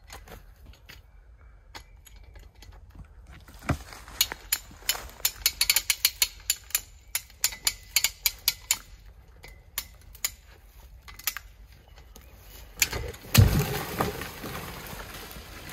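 Hand ratchet puller being worked to tension the felling rope: runs of quick, sharp ratchet clicks. About 13 seconds in there is a loud heavy thump, followed by a couple of seconds of rustling.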